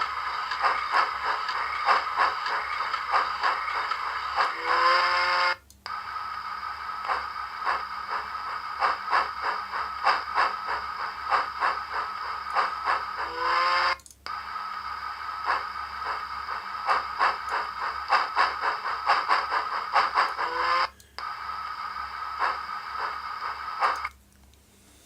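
Digitrax SDH166D model-locomotive sound decoder playing its running sound through a small speaker, with rapid rhythmic beats. Three times a short whistle sounds and the whole sound cuts out abruptly for about half a second before resuming; near the end it cuts out altogether. This is a fault in which the decoder's sound drops out whenever the whistle is used.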